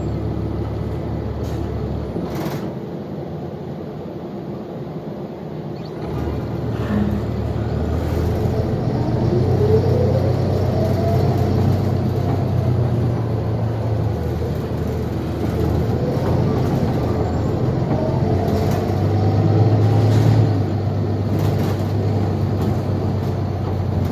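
Cabin sound of a 2021 New Flyer XDE40 Xcelsior hybrid bus driving: a steady low drone that swells about six seconds in, with a whine from the hybrid electric drive rising in pitch as the bus gathers speed and then falling, and rising again later.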